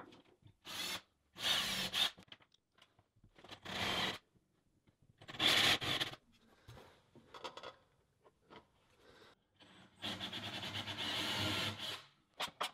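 A drill fitted with a Forstner bit boring a hole through a plastic mounting board. It cuts in several short bursts, and near the end there is a longer, steadier stretch with a fast ripple.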